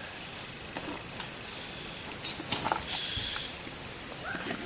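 Forest insects droning steadily on a high pitch, with an evenly pulsed chirp running under the drone. A few light clicks come about midway, the sharpest about three seconds in.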